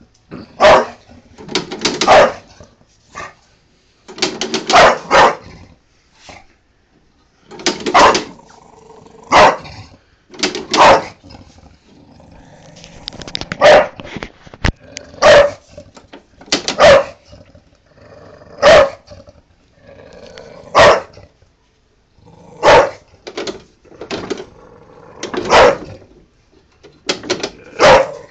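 Bulldog barking angrily in short bursts of one to three barks, coming every second or two.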